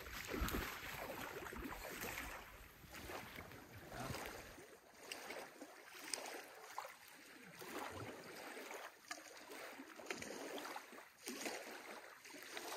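Faint splashing and lapping of water around a canoe being paddled, with small irregular drips and knocks.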